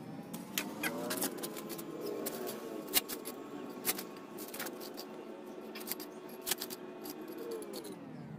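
Small hand hoe striking and scraping loose garden soil, irregular sharp clicks and scrapes. Under it a faint steady motor hum that rises in pitch about a second in and falls near the end.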